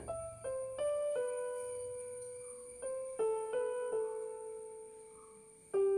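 Background music: a slow keyboard melody of a few held notes that step from pitch to pitch and fade, with a new note near the end.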